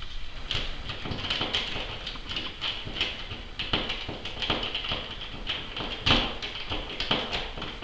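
Irregular clicks and taps of a steel mini-split mounting plate being handled and fastened against a wall, with one louder knock about six seconds in.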